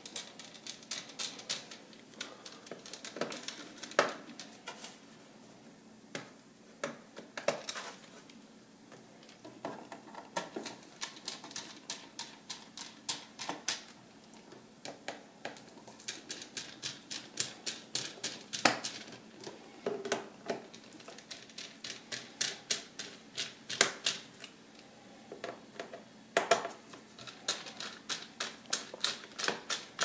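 Screwdriver working the small Phillips head screws out of a Lenovo ThinkPad P50's bottom cover: light clicks and ticks of metal on screw and plastic, coming in quick runs of clicks with short pauses between.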